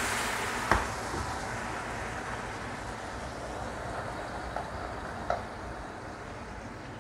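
Boiling water sizzling and hissing as it hits the hot non-stick wok of fried beef tendon and spices, fading gradually. A spatula knocks against the wok twice, about a second in and again near the end.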